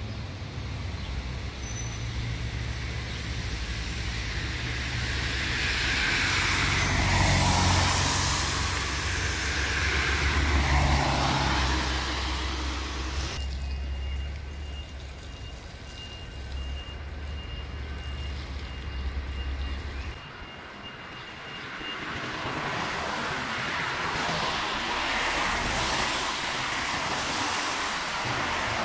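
A vehicle engine running steadily in the first two-thirds, with cars passing on the street. A high beeping tone sounds for several seconds around the middle.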